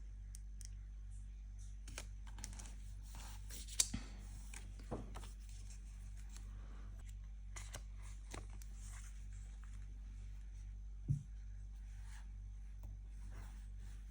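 Paper and stationery being handled for journaling: scattered light rustles, small taps and clicks, with a sharper knock about 4 seconds in and again about 11 seconds in, over a steady low hum.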